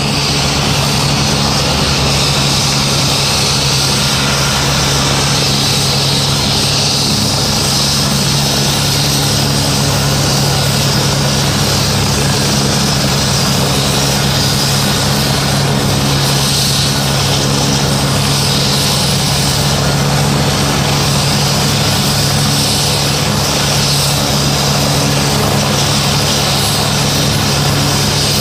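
Helicopter running on the ground with its turbine engines whining and main rotor turning steadily; the sound holds at a constant level throughout, with no spool-up or lift-off.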